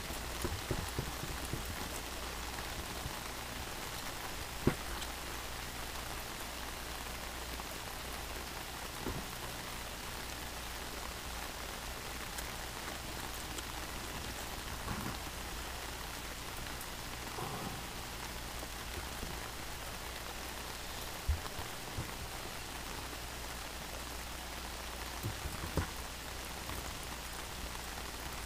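Steady rain falling on wet pavement, with a few brief knocks now and then.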